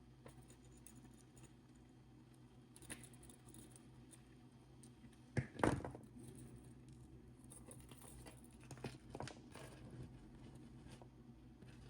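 Faint clicks and taps of glass and crystal beads being picked up and strung onto a necklace, with a louder clatter about five and a half seconds in, over a low steady hum.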